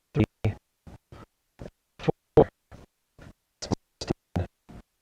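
Broken-up, garbled audio: short fragments of a man's voice, each a fraction of a second, cut apart by gaps of dead silence, the sign of a faulty recording.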